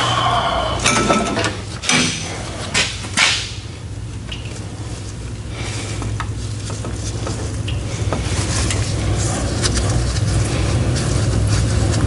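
John Deere 5075E's diesel engine running with a steady low hum that grows louder through the second half, with a few sharp metal clinks and knocks in the first three seconds or so as hands work at a filter on the engine.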